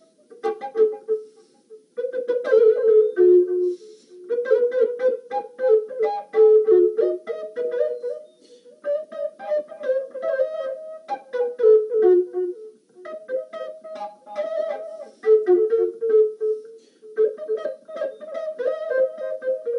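Instrumental background music: a slow flute melody over plucked strings, in phrases of a few seconds each.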